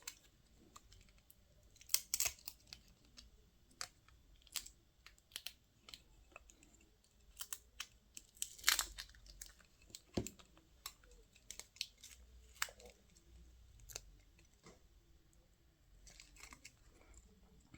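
Faint, irregular clicks and scratches of small tools and plastic parts as a feature phone is taken apart, with a few sharper snaps about two, nine and ten seconds in.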